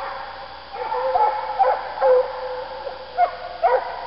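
Russian hounds baying in repeated yelping calls and drawn-out notes, the voice of hounds running a scent trail.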